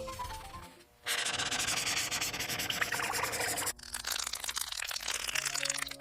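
Sanding: a dense, steady rasping rub lasting about two and a half seconds, starting about a second in, with background music before and after it.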